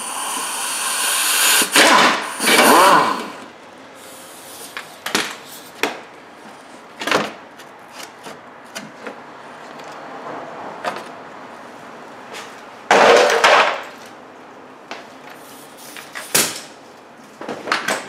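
A Jeep Grand Cherokee's plastic skid plate being unbolted and pulled down: a few seconds of loud tool noise at the start, then scattered knocks and clatter of the plate. A loud scrape comes about 13 seconds in and a sharp knock about 16 seconds in.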